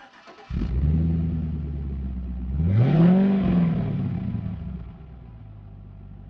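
Car engine starting up, revved once with a rising and falling note, then settling back to a quieter idle that fades out near the end.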